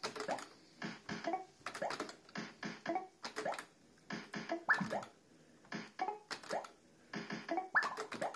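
Barcrest Party Animal fruit machine being played spin after spin, about five spins: each one brings a quick run of clicks and electronic bleeps, with short rising-pitch sound effects, as the reels spin and stop.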